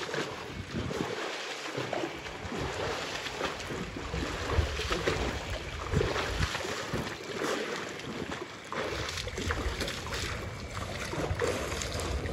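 Water splashing as a swimmer does butterfly stroke in a swimming pool, arms and kicking legs slapping the surface in a run of irregular splashes.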